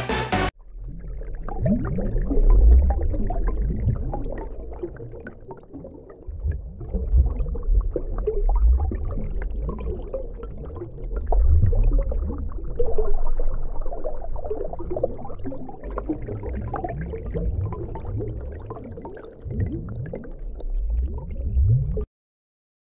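Underwater sound picked up by a submerged Samsung Galaxy S23 Ultra's microphones: a muffled rumble of moving water and the gurgle of a swimmer's exhaled air bubbles, with many short rising bubble sounds. It cuts off suddenly near the end.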